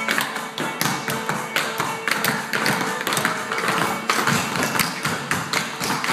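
Dancers' shoes tapping and striking a wooden studio floor in quick, dense rhythmic clicks, laid over recorded dance music.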